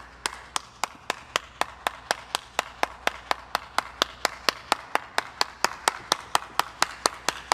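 One person clapping their hands in a steady, even rhythm, about three to four claps a second.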